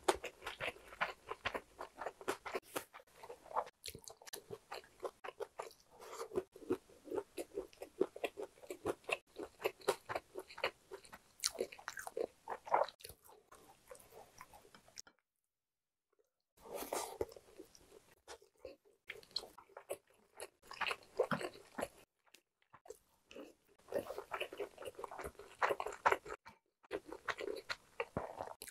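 Close-miked chewing of a mouthful of food, with many quick crunchy bites in close succession. It breaks off into dead silence for about a second and a half midway, then the chewing resumes in shorter runs.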